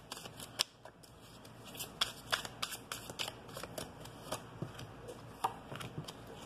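Tarot cards being shuffled and drawn by hand: a quiet, irregular run of quick card snaps and flicks.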